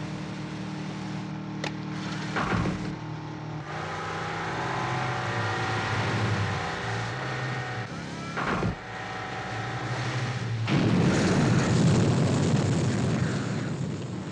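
Powerboat engines running at speed over rushing water, with a brief whoosh about two and a half seconds in and another about eight seconds in. A louder rush of noise builds from about ten seconds in.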